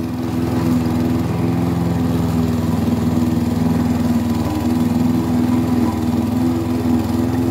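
Petrol Stihl lawn mower's engine running under heavy load as it mulches tall, bushy grass, with a steady engine note. The engine is near its limit and not quite coping with the dense grass.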